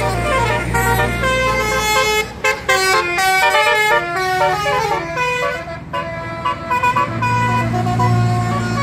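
Tour bus telolet horn playing a quick melody of stepping notes, several tones sounding together and running up and down in pitch, over and over. The bus engine runs underneath as a low rumble that grows louder near the end.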